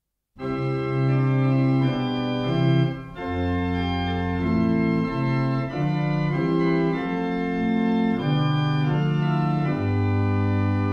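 Organ music: held chords that change every second or so, starting about half a second in after silence.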